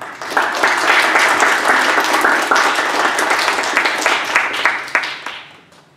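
Audience applauding: dense clapping that starts right away and dies down near the end.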